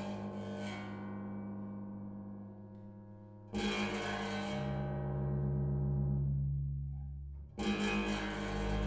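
Amplified harp, double bass and tam-tam playing slow, dark new music. Heavy plucked attacks on the harp's low strings ring and slowly decay, one about a third of the way in and another near the end. Between them, a deep sustained low tone swells and holds.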